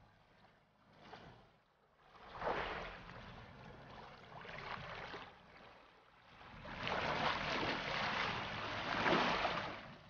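Sea water surging and splashing. It swells up about two and a half seconds in, then comes back louder and longer for the last few seconds.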